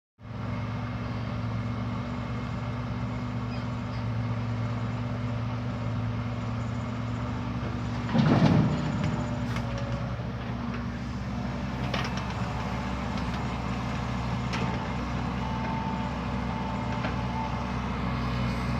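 Diesel engine of heavy earthmoving machinery running steadily, with a brief louder surge about eight seconds in and a few faint clicks later.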